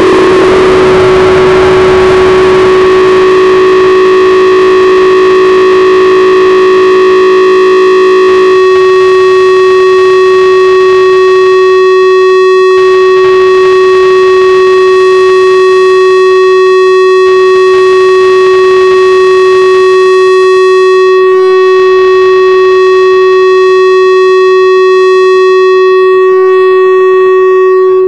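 Loud, distorted electronic drone from a harsh noise / power electronics set: a single tone held at one steady pitch with a tall stack of overtones. A dense noisy layer and a few lower tones beneath it drop away about eight seconds in, leaving the bare tone, which cuts off suddenly at the very end.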